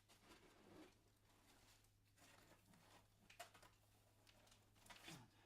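Near silence: faint rustling and a few light taps from pieces being handled, over a low steady hum.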